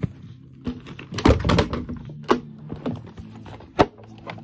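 A phone being handled and propped up, knocking and tapping against hard surfaces in a series of sharp clicks, with a loud cluster about a second in and another sharp knock near the end. Background music with a steady low tone runs underneath.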